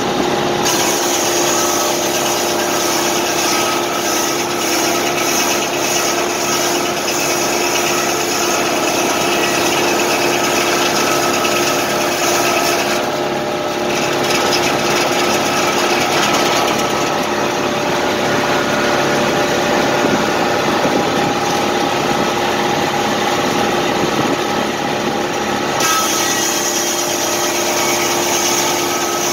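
A tractor engine running steadily and driving a circular sawmill, its large blade spinning with a steady hum. A high hiss over the top drops away for about thirteen seconds in the middle, then returns.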